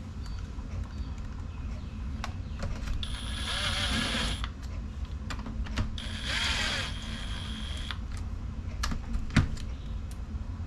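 A cordless power driver runs the sump cover bolts down on a Tecumseh engine in two runs of about one and a half and two seconds, its motor giving a steady whine. Sharp clicks and taps of tools and bolts come between the runs.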